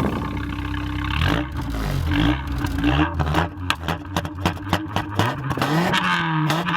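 Opel Calibra petrol engine accelerating hard, its pitch climbing and dropping several times as it revs through gear changes, with a stretch of rapid clattering clicks about halfway through.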